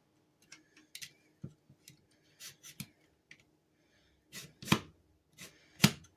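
Hart heavy duty all-metal staple gun being handled while someone tries to load it. There are light metal clicks and scrapes at first, then two loud sharp snaps of the mechanism about a second apart near the end. The staples will not go into the magazine.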